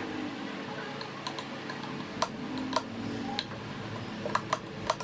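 Light metallic clicks and clinks, irregular and scattered, from the gears and parts of an open lathe gearbox being handled, over a steady low hum.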